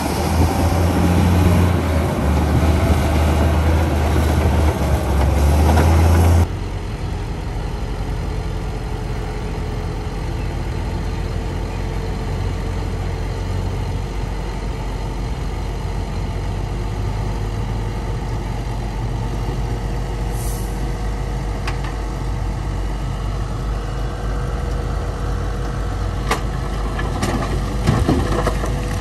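Heavy diesel construction machinery running. A loud, deep engine sound cuts abruptly about six seconds in to a steadier, quieter engine sound with a faint steady whine and a few sharp clicks near the end.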